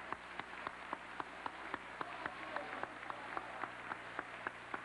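Large auditorium audience applauding, with one nearby pair of hands clapping in a steady beat about four times a second over the general clapping, which grows slightly louder near the end.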